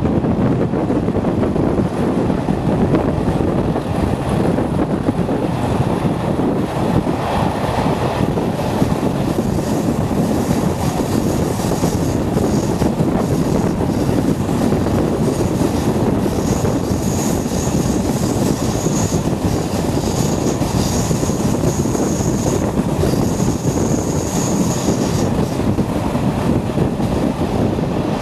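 Class 37 diesel-electric locomotive's English Electric V12 engine under power hauling coaches, heard out of an open coach window with steady wheel-on-rail running noise. In the middle stretch a thin, high squeal comes and goes as the train takes a curve.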